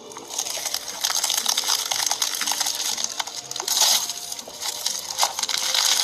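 Slime being squeezed and pressed by hand, giving a dense crackling and clicking that gets louder about a second in.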